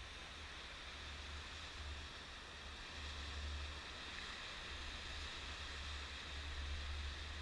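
Sea surf breaking and washing up a sandy beach in a steady hiss of waves, with a low rumble underneath that swells and fades.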